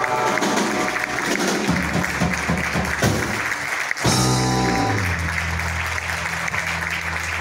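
Live guitar music played hard, ending about four seconds in on a final chord that is left to ring, while an audience starts applauding.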